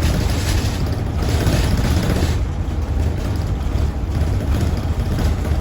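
Cabin noise inside a moving bus: a steady low rumble of engine and road noise.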